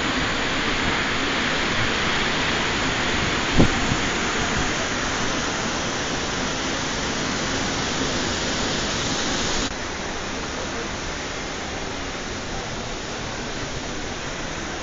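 Steady hiss of heavy rain and wind at the start of Hurricane Irene, with a single sharp knock about three and a half seconds in. The hiss drops a little quieter about ten seconds in.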